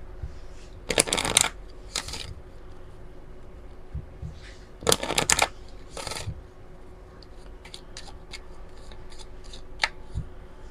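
A deck of oracle cards being shuffled by hand: quick bursts of cards rustling and slapping together about a second in and again about five seconds in, then lighter card clicks toward the end.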